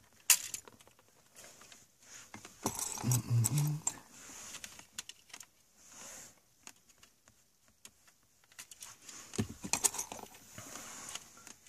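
Scattered small plastic clicks and rattles of an Audi Q7 MMI console panel as its silver trim clips are pried loose with toothpicks, with a brief low voice sound about three seconds in.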